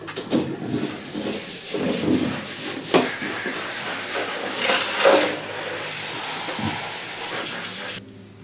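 Steady loud hiss of falling water that starts and cuts off abruptly, with a couple of sharp knocks about three and five seconds in.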